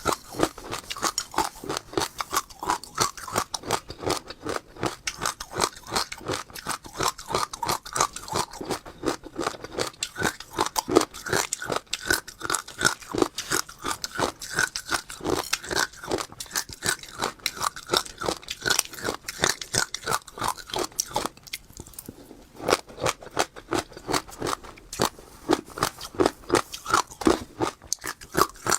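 Close-up chewing of crunchy passion fruit seeds, the seeds cracking between the teeth in rapid crunches, several a second, with a short pause about three-quarters of the way through.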